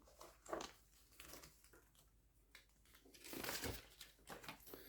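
Faint rustling and crinkling of packaging being handled, a few soft scattered sounds with a slightly longer rustle a little past the middle.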